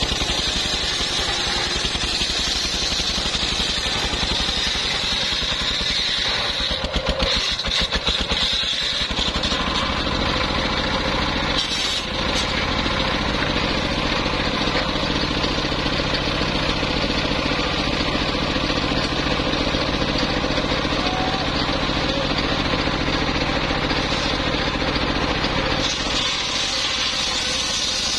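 Engine-driven homemade circular sawmill running, its large blade ripping lengthwise through a log with a high hiss over the engine's steady drone. The cut ends about ten seconds in, leaving the engine running steadily, and the blade cuts into the log again near the end.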